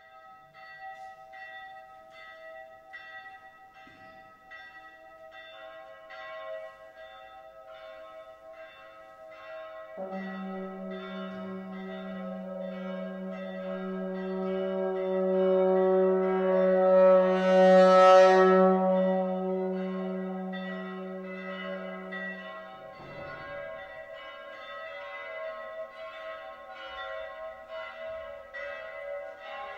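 Solo trombone with live electronics: several sustained tones stacked into a steady drone with a faint regular pulse. A low held trombone note enters about ten seconds in, swells to its loudest a little past the middle, and stops about two-thirds of the way through, leaving the higher tones ringing on.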